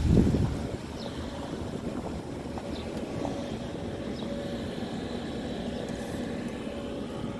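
Outdoor street ambience: a steady low rumble with a faint steady hum through it. It is louder in the first half second, then settles.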